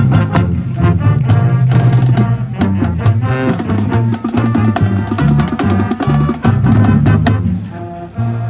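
High school marching band playing, with brass over a steady bass line and dense drum hits; the drumming thins out and the level eases near the end.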